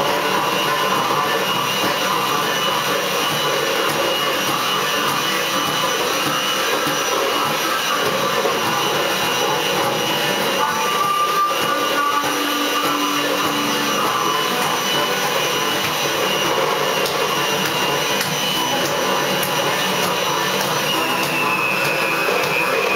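Amplified blues harmonica played through a cupped corded microphone, a steady dense train-boogie chug, with acoustic guitar strumming along.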